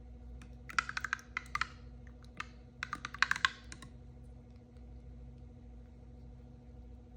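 Two short bursts of rapid crackling clicks, a second or so each, from plastic toy packaging being handled and opened.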